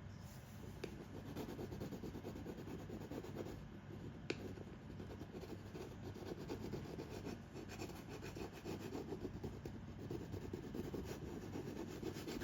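Steady, rapid scratchy rubbing on a hard surface, with one sharp click about four seconds in.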